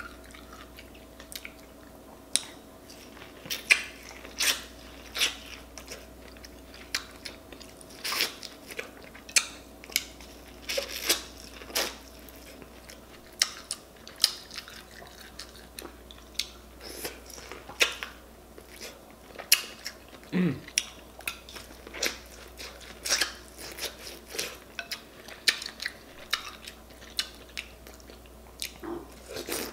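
Close-miked eating sounds: chewing with many short, irregular mouth clicks as sauce-covered boiled potatoes and corn are eaten.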